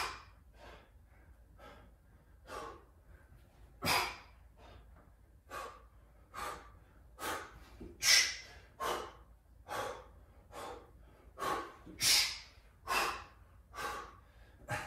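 A person breathing hard in sharp, hissing exhales about once a second, with a stronger one about four seconds in. This is the breathing of someone straining through slow-tempo push-ups.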